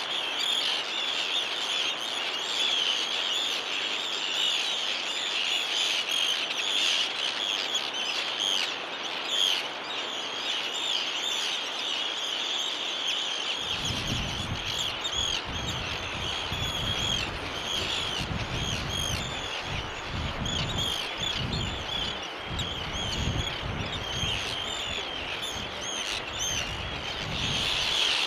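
Colony of Arctic terns calling, many harsh, overlapping calls at once in a continuous chorus. From about halfway through, wind buffets the microphone in gusts.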